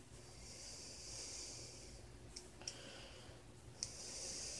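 Faint breathing close to the microphone, with a few small plastic clicks as Mega Construx building pieces are handled and fitted together.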